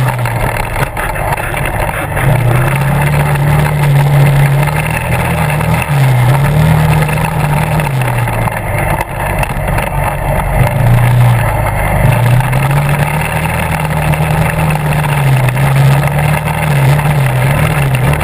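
Quad (ATV) engine running under way, its note rising and falling repeatedly as the throttle is worked over the trail.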